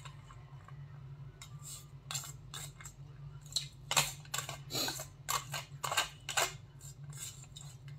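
An eating utensil scraping and clicking against an aluminium foil takeaway food tray. There are a dozen or so short scrapes and taps, bunched between about two and six and a half seconds in.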